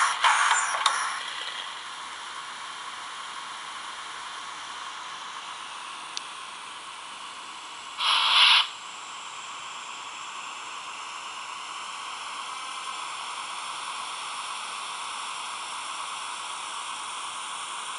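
Steady steam hiss from a Fleischmann BR 55 model steam locomotive's sound, with a short, much louder blast of hiss about eight seconds in.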